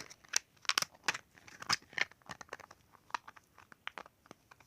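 Plastic packaging of a slime container being handled: irregular crinkling and clicking.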